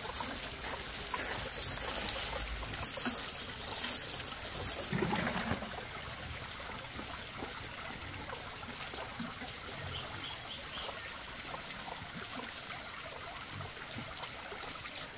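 Water pouring and sprinkling from a plastic watering can onto a plant and the ground, lasting about the first five or six seconds; then only a quieter steady background hiss.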